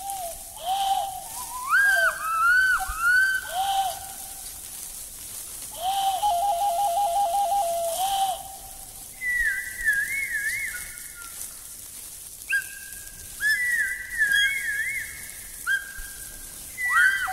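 Several whistles and bird-call whistles blown by children, their pitches overlapping and swooping up and down like birdsong. A quick warbling trill comes about six seconds in.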